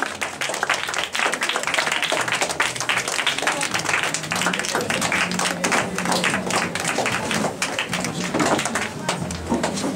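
A crowd clapping, many hands at once, with voices mixed in.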